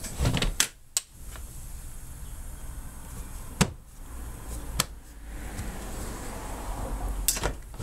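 Trim panels in a car's rear cargo area being handled and set in place: about five sharp knocks and clunks at irregular intervals, with some rustling between them.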